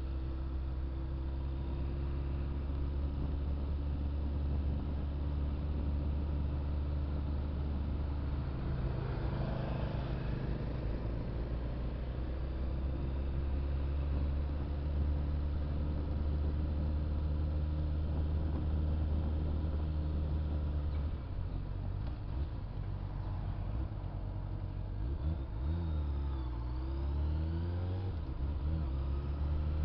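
Honda Hornet motorcycle's inline-four engine running while riding at steady town speed, its pitch stepping to a new steady note about nine seconds in and again about two-thirds through. Near the end the engine note dips and rises again as the bike slows and picks up speed.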